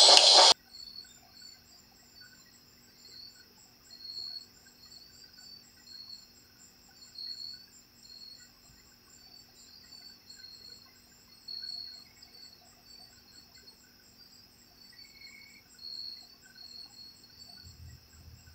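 Crickets chirping steadily in the dark, two high-pitched trains of pulses, after a loud voice is cut off about half a second in.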